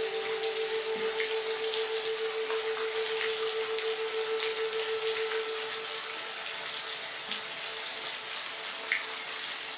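Steady hiss of rain with scattered individual drops, over a soft ambient music pad holding one low note that fades out about six seconds in.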